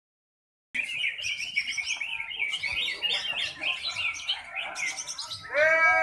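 Caged cucak ijo (green leafbirds) singing together: fast, dense, overlapping chirps and warbling phrases, starting just under a second in. Near the end a man's voice calls out loudly over the birdsong.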